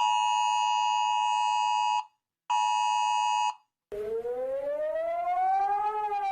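Emergency Alert System-style two-tone attention signal, a steady chord sounding for about two seconds, breaking off, then sounding again for about a second. About four seconds in, a siren wail starts, rising slowly in pitch and then beginning to fall near the end.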